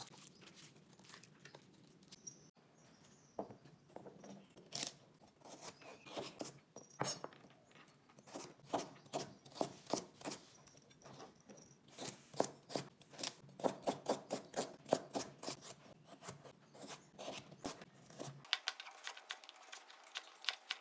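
Chef's knife chopping crisp celery stalks on a plastic cutting board: a string of sharp, crunchy cuts, in quick runs of about three a second, starting a few seconds in.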